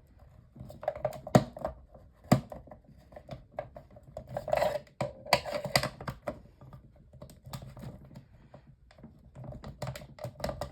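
Irregular clicks, taps and knocks of hard plastic parts and a screwdriver as the casing of a small fan heater is unscrewed and worked apart, with a few sharper knocks early on and a busier run of clicking around the middle.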